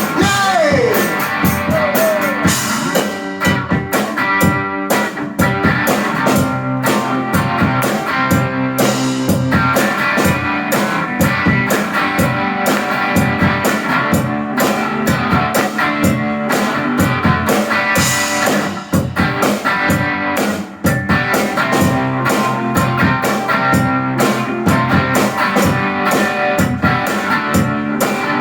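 Rock band playing an instrumental break: guitar over a drum kit, with a shouted 'Yay!' just as it begins.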